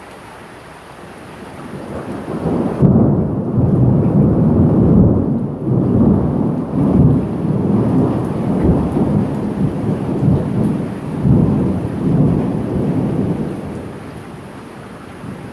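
Thunderclap rumbling through steady rain in a thunderstorm. The rumble swells about two seconds in, rolls in waves for about ten seconds, then fades back to the rain.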